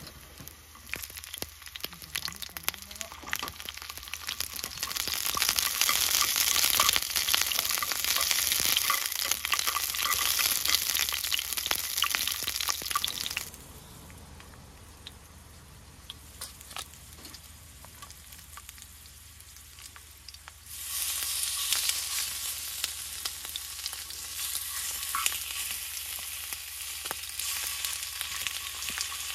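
Oil sizzling and crackling in a skillet of potato chunks on a camp stove. The sizzle swells over the first few seconds, drops off sharply a little before halfway, and comes back loud about two-thirds of the way through.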